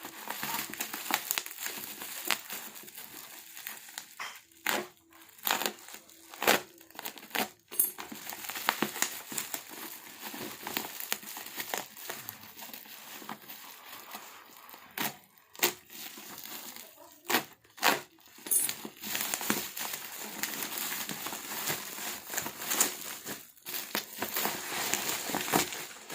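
Parcel packaging being unwrapped by hand, crinkling and rustling, with many sharp crackles and clicks scattered throughout.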